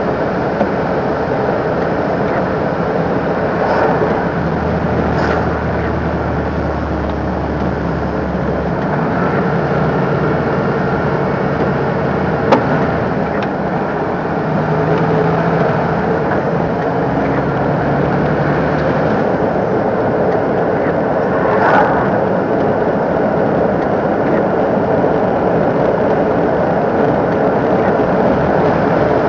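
MAN TGS 26.320 lorry's six-cylinder diesel engine running on the road, with steady road noise. The engine note changes about nine seconds in, and a single sharp knock comes about halfway through.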